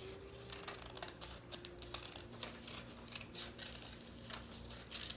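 Small scissors snipping through paper, a quiet run of short, irregular snips and clicks as a shape is cut out.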